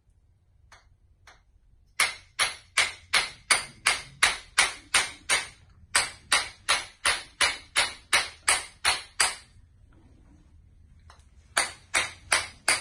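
Chiropractic adjusting hammer striking in a fast, even run of sharp ringing taps, about three a second, starting about two seconds in. It pauses for about two seconds near the end, then starts again.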